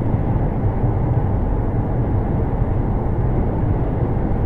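Steady road and engine noise inside a car cruising at motorway speed, a low even rumble without changes or impacts.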